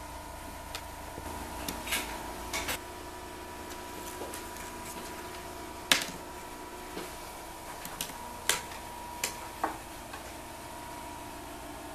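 About ten light clicks and knocks at uneven intervals, the loudest about six seconds in, over a steady indoor hum with a faint high tone.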